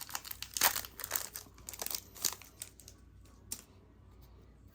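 Foil wrapper of a Pokémon TCG booster pack crinkling and tearing as it is worked open by hand: a run of sharp crackles over the first two seconds or so, one more crackle a little later, then quiet handling.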